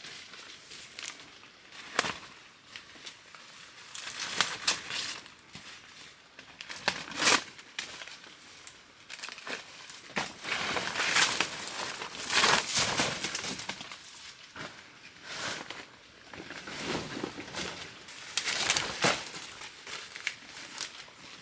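Irregular rustling and crinkling of dry material being handled, with short sharp crackles, busiest around the middle.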